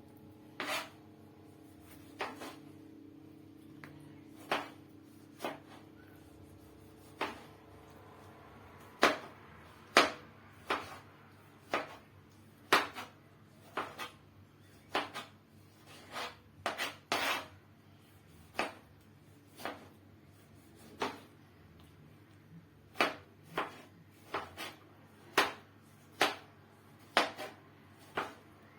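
Knife slicing tomatoes, the blade knocking on the cutting board at uneven intervals, about one cut a second, with a few quick double knocks.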